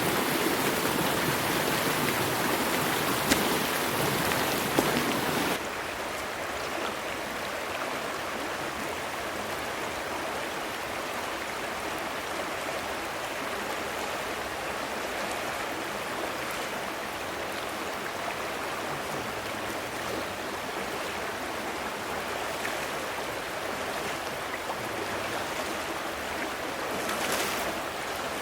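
Rushing creek water, a steady flow. It is louder for about the first five seconds, then drops suddenly to a softer steady rush, with a couple of small knocks before the drop.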